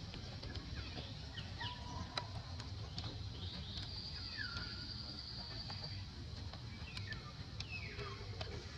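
Outdoor ambience with birds calling: a few short falling chirps and whistles, and a high, steady trill about four seconds in that lasts a couple of seconds, over a constant low rumble.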